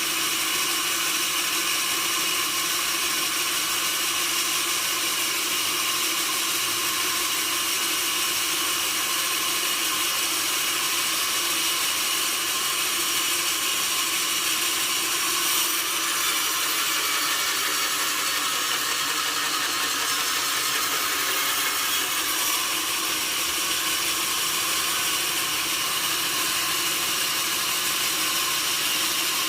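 Sawmill saw cutting through wood, a steady, unbroken high-pitched noise with a few constant tones running through it.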